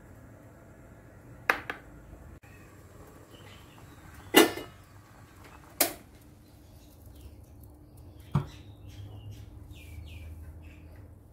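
Four sharp knocks of kitchenware, the loudest about four seconds in, as a steel pot and bowls are handled. Birds chirp in the background through the second half.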